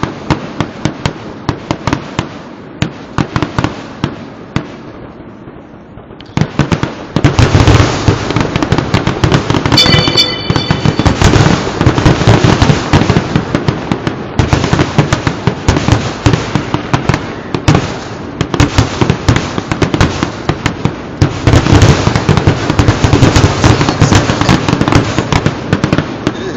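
Fireworks display in a dense barrage: many rapid, overlapping bangs and crackles of aerial shells. It eases off briefly about five seconds in, then comes back thick and loud for most of the rest.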